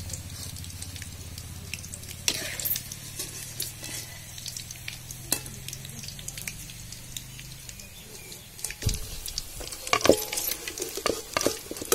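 Chicken pakoras crackling and sizzling in hot oil in a steel kadai as a metal ladle scoops the fried pieces out. In the last few seconds the ladle knocks and clinks against the pan and the steel platter.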